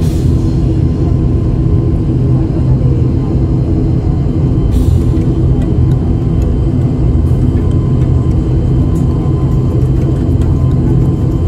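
Airliner engines heard from inside the passenger cabin, a loud, steady low rumble with a few constant tones over it while the aircraft moves on the ground before takeoff.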